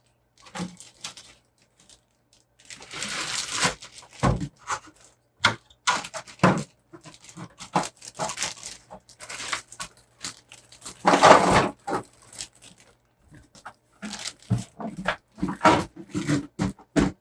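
Irregular rustling, crinkling and knocking of kit packaging and plastic parts being handled, with two longer, louder rustles about three and eleven seconds in.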